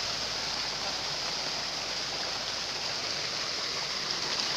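Steady rushing and splashing of shallow water churned by many fish thrashing inside a closed fishing net.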